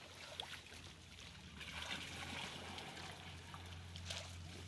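Muddy pond water splashing and trickling around a seine net as it is hauled in, with scattered small splashes and a low steady hum underneath.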